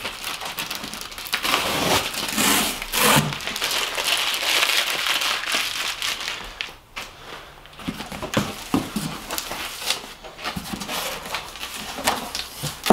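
Parcel tape being ripped off a cardboard box in long tearing pulls, then the wad of tape crumpled and the box flaps pulled open near the end.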